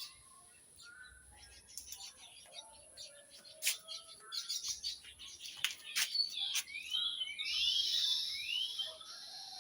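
Small birds chirping and calling, with quick downward-sliding notes and a denser run of calls near the end. A few sharp clicks come in between.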